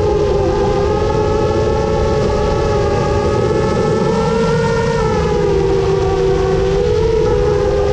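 Motors and propellers of a 7-inch FPV quadcopter whining steadily, the pitch sagging a little past the middle and rising again near the end as the throttle changes.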